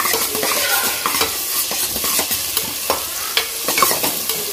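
Chopped shallots, tomatoes, green chillies and curry leaves sizzling in hot oil in a pressure cooker pan, with a spatula stirring and scraping the pan in repeated strokes as the vegetables are sautéed.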